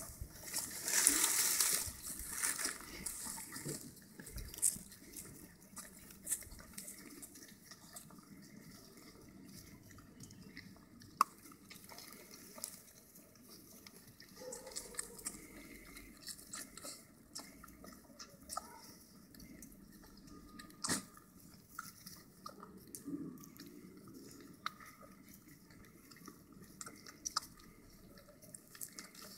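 Puppies suckling at their mother's teats: scattered, irregular wet smacking and sucking clicks. A louder rustle comes in the first two seconds.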